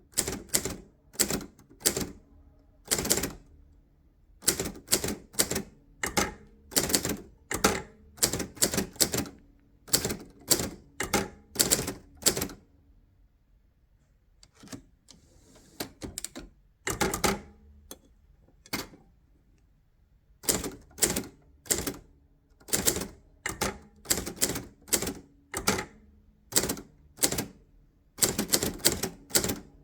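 Keys of a 1965 Hermes 3000 manual typewriter with script typeface being typed, type bars striking the platen in an uneven run of sharp clacks, with a pause of a couple of seconds about halfway through.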